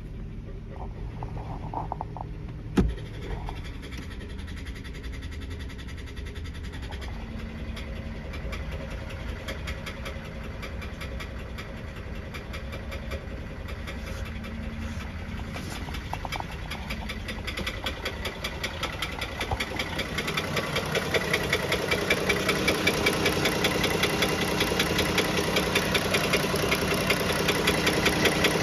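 Dodge Journey's Pentastar V6 running with an evenly repeating knock that grows louder about two-thirds of the way through, a knock most likely from a worn piston wrist pin. A single thump about three seconds in.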